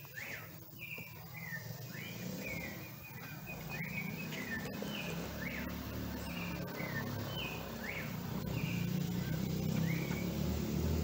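Mockingbird chirping: a string of short, separate notes, some even and some quickly rising, about one or two a second, over a low rumble that grows louder from about four seconds in.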